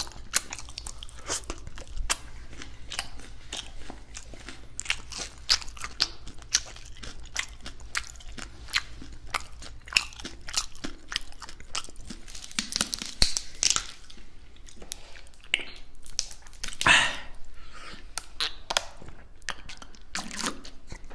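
Close-miked chewing of crispy fried chicken: wet mouth sounds and many irregular sharp crunches of the crust, recorded on a binaural ear-shaped microphone. Near the end comes a swallow of water from a plastic bottle.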